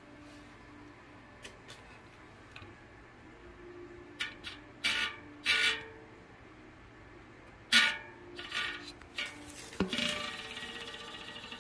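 Hard plastic bicycle-wheel parts and packaging being handled, with several short rustles and clatters in two clusters. Music starts near the end.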